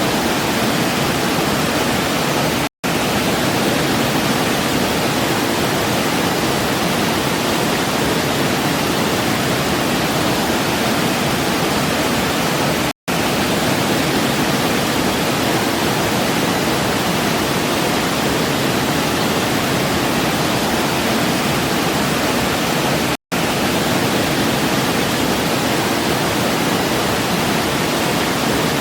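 Small waterfall running steadily, a dense, even rush of falling water. It cuts out to silence for an instant three times, about ten seconds apart.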